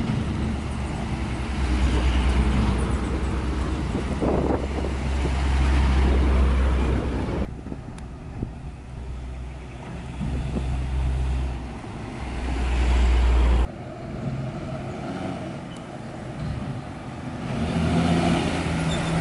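Hino 500 dump trucks' diesel engines working hard on a dirt haul road, a deep rumble that swells as each truck draws close. The sound changes abruptly twice, about a third of the way in and again past the middle.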